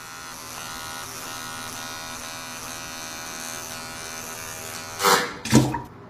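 Small electric trimmer buzzing steadily for about five seconds, then two loud sudden sounds close together near the end.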